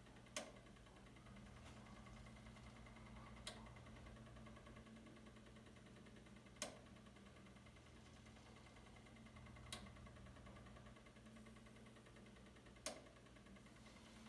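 Electrolux Prosdócimo washing machine during a rinse: a faint steady low hum with a sharp click about every three seconds, five clicks in all.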